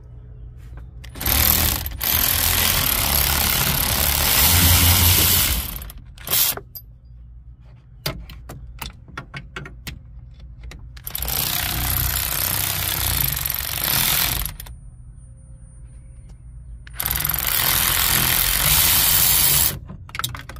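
Wrench work tightening the nuts of a new brake master cylinder: three loud runs of dense, rapid mechanical noise a few seconds each, with scattered clicks between them.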